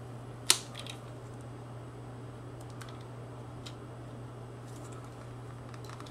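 Box cutter blade cutting along a pencil outline in a vertical blind slat on a tile floor: a sharp click about half a second in, then a few faint clicks and scrapes, over a low steady hum.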